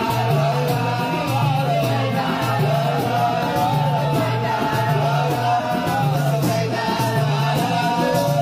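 Swahili kasida: a devotional song sung in a wavering melody over a repeating low accompaniment.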